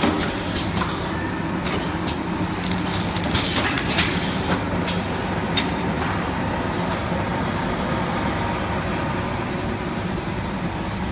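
Automatic filter-cartridge packing machinery running: a steady mechanical hum with sharp clicks and knocks from the moving stations in the first few seconds, then a steadier, even noise.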